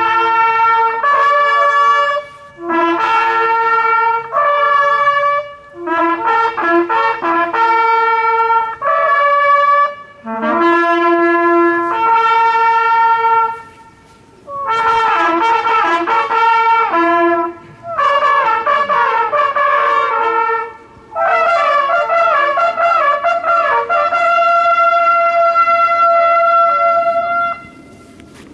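Several hunting horns blown together, playing short fanfare phrases of held notes with brief pauses between them, and ending on one long sustained note. These are hunting-horn signals sounded over the laid-out game at the end of a driven hunt.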